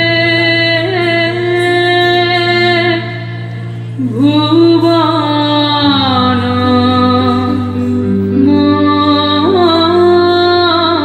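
A song with a woman singing long held notes over a steady low drone. The phrase breaks off about three seconds in, and a new one begins about a second later.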